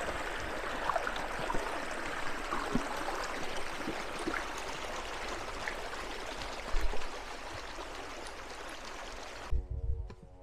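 Small rocky stream rushing and splashing over stones and a little cascade, steady throughout. It cuts off abruptly near the end, where music with held tones comes in.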